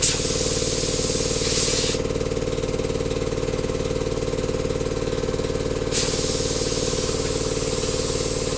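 Air compressor running steadily while compressed air hisses through a locking air chuck into the tire; the hiss is strong for the first two seconds, eases, and picks up again about six seconds in.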